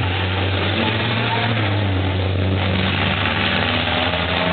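Race trucks' big turbodiesel engines droning as several trucks come through a chicane, a steady low engine note.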